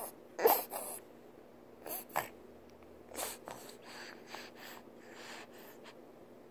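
A baby's breathing and mouth noises close to the microphone while it sucks on its fingers: a series of short, soft bursts, the loudest about half a second in.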